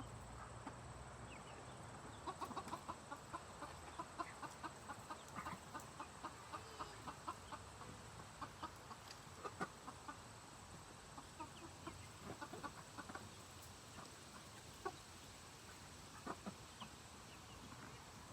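Chickens clucking while they peck at a big zucchini: many short clicks and soft clucks, busiest in the first half.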